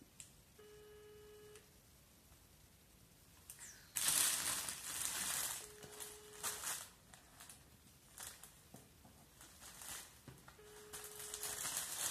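A phone's ringing tone for an outgoing call: a short steady beep about a second long, repeating three times about five seconds apart with no answer. From about four seconds in, loud plastic crinkling and rustling is the loudest sound.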